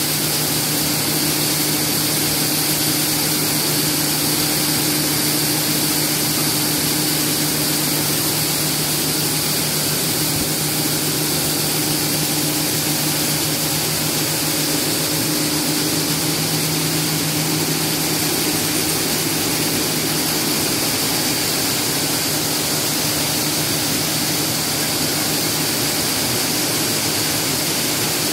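Seed-processing machinery running steadily: a dense, even mechanical noise from the cleaning and grading machines, with a constant low hum and a thin high whine over it.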